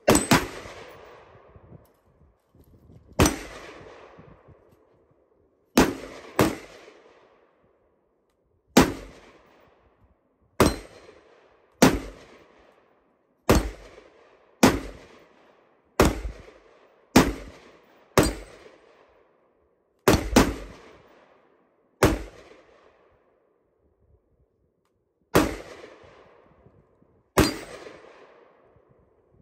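IWI Tavor X95 short-barreled bullpup rifle firing single shots, about seventeen in all, spaced roughly one to three seconds apart. Each report trails off in a short echo.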